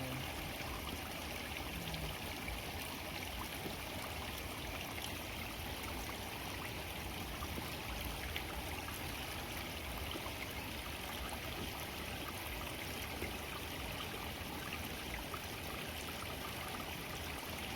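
Steady running water, an even rushing hiss that holds without change.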